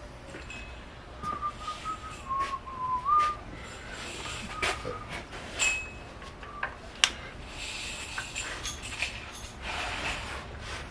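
A person whistling a few notes that step down and glide back up, followed by sharp metallic clicks and clinks of parts being handled in the engine bay around the fuel injectors.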